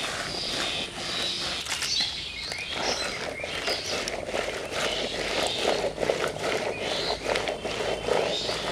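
Hands rubbing and stirring wet gol mushrooms in a wicker basket, a steady run of small scrapes, rattles and squelches as they are washed, with birds chirping.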